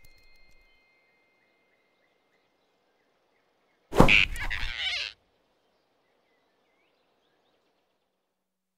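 A cartoon whoosh-and-grab sound effect of a fast swipe snatching something, loud and sudden about four seconds in, lasting about a second. Before it there is only faint forest ambience with a few soft chirps.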